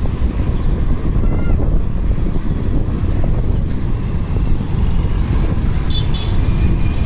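Riding a motorcycle in traffic: steady wind rush and road and engine rumble on a helmet-mounted phone microphone.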